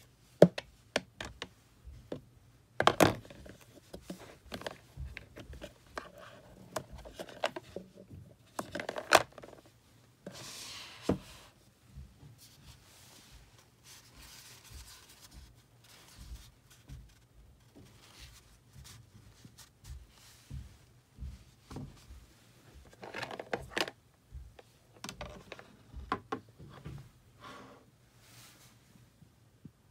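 Handling noises from unpacking a Google Home smart speaker: scattered clicks, knocks and rubbing from its plastic body, power cable and cardboard box, with the sharpest knocks about three and nine seconds in and a longer rustle about ten seconds in.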